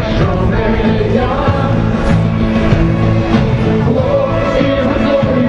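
Music with singing, loud and steady.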